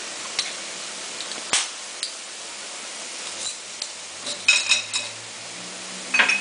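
Metal tongs clinking against a steel wok of stir-frying vegetables, over a steady frying hiss. Single clicks come in the first two seconds, then a quick cluster of ringing clinks about four and a half seconds in and another just before the end.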